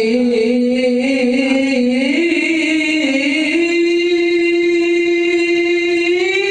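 A man's solo melodic chanting through a microphone, the melody wavering and stepping, then settling into one long held note from a little past halfway.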